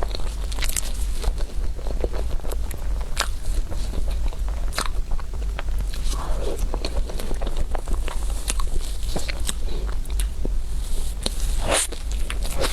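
Close-up eating sounds of a crepe roll dessert being bitten and chewed: a run of sharp wet clicks, smacks and crunches at irregular intervals, over a steady low hum.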